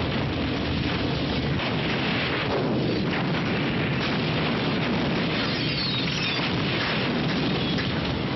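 Action-film battle sound effects: a steady, dense roar of explosions and gunfire.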